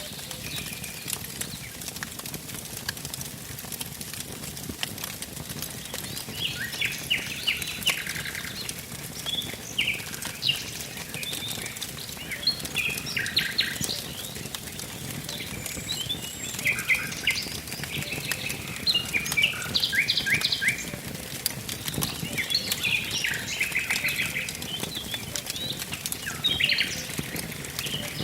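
Wood fire crackling with frequent sharp pops, while songbirds sing and chirp in quick repeated notes.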